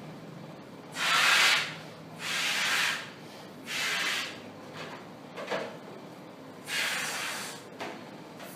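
A latex balloon being blown up by mouth: four long breathy blows into it with short pauses between, and a few quieter breaths in the gaps.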